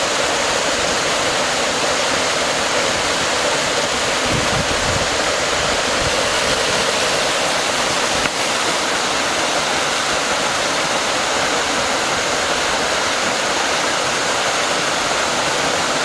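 Small waterfall splashing down over mossy rocks: a steady rush of falling water.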